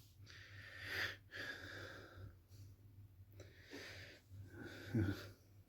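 Faint breathing close to the microphone: several soft breaths in and out.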